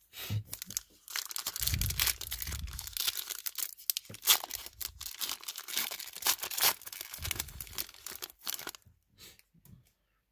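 2019 Prizm football card pack's foil wrapper being torn open and crinkled in the hands, a long run of crackling that stops near the end.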